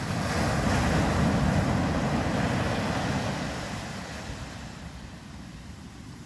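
Surf on a sandy beach: a wave breaking and washing up the shore, swelling about a second in and fading away over the next few seconds.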